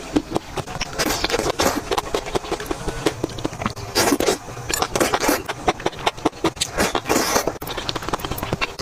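Close-miked eating: dense, irregular crunching and crackling bites and chews, with a few fuller wet mouth noises.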